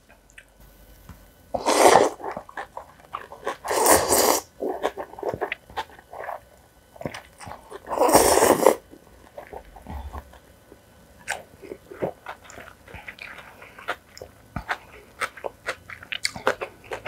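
Mouth sounds of someone eating spicy cold noodles: three loud slurps, about two, four and eight seconds in, with chewing and crunching between them made up of many small wet clicks.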